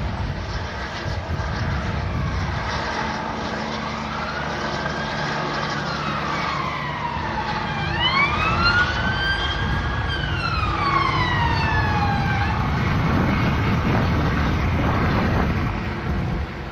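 Police car siren wailing in two slow rising-and-falling sweeps, starting about three seconds in and stopping a few seconds before the end, over a steady low rumble.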